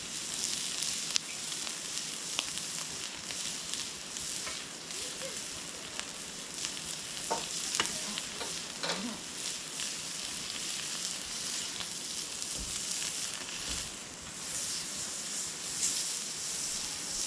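Beef sizzling on a hot iron griddle plate: a steady frying hiss with scattered small pops and spits.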